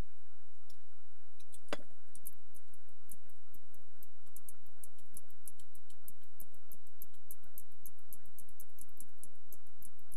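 Bush clock radio giving a steady low hum, with a quick, irregular run of faint crackling clicks that get denser and one louder click about two seconds in.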